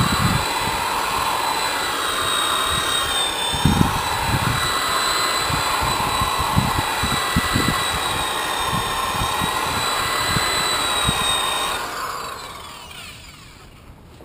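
Corded electric polisher with a foam pad running steadily against a boat's painted hull, a high whine with scattered low knocks and bumps as the pad works the surface, polishing wax into the paint. About twelve seconds in it is switched off and its whine falls away as it spins down.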